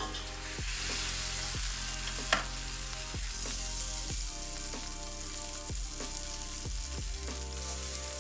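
An onion slice frying in hot oil in a cast iron skillet: a steady sizzle, with one short sharp clink about two seconds in.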